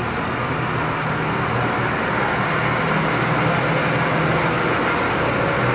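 Steady background noise with a faint low hum.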